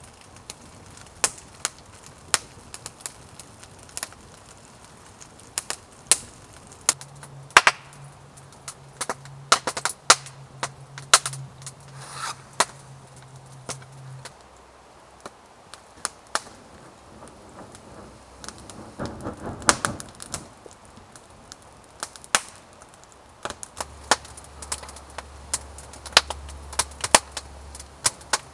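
Wood campfire crackling and popping as split kindling and logs burn, with many sharp, irregular snaps.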